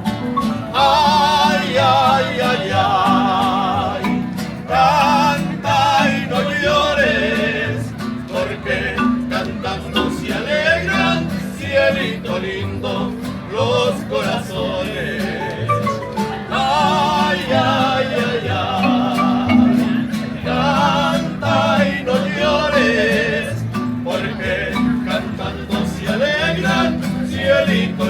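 Live mariachi band playing: a melody with heavy vibrato over a steady low bass and strummed rhythm.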